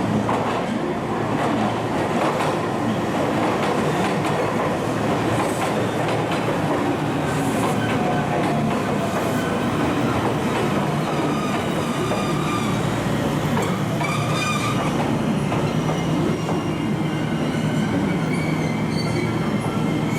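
JR West train running along the tracks, wheels clattering over rail joints, with faint wheel squeal that shifts slowly in pitch.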